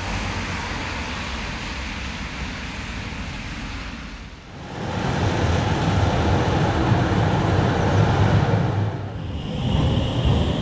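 Tram and street-traffic running noise in short clips joined by cuts: a steady running noise, then from about five seconds in a louder low rumble with a faint steady whine, and near the end a high steady whine.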